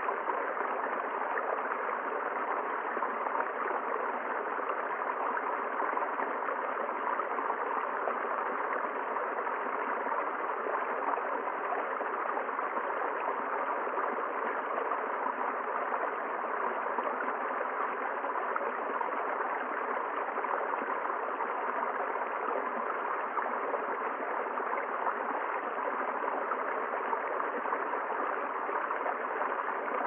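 Small forest stream running over rocks and a low cascade: a steady, even rush of water.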